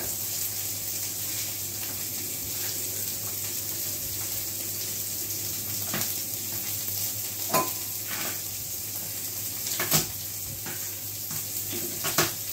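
Carrots, celery and garlic sizzling in hot chicken fat and oil in a pan, a steady hiss, with four sharp knocks of a utensil against the pan.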